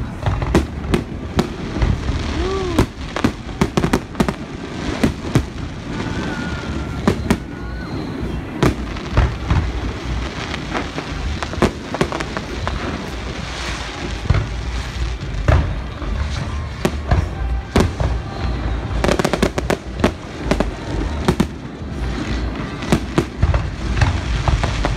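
Aerial fireworks display: shells bursting overhead in an irregular string of sharp bangs, with a dense cluster of rapid bangs about 19 seconds in.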